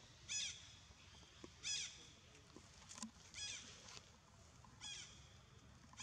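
A series of short, high-pitched animal calls, each a brief rising-then-falling cry, repeated about every second and a half.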